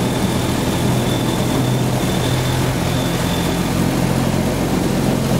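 Model T Ford railcar's engine running steadily as the railcar moves slowly along the track. A faint high whine comes in about a second in and fades after a few seconds.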